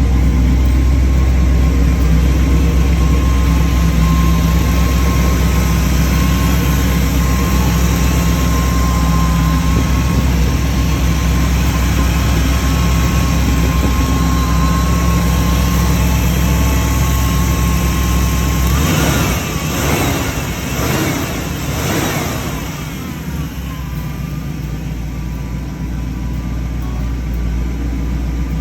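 A 1966 Ford Bronco's original 302 V8 running steadily, in good running order. About two-thirds of the way through the sound changes abruptly: a few quick rising and falling sweeps over several seconds, then a quieter, steady engine sound.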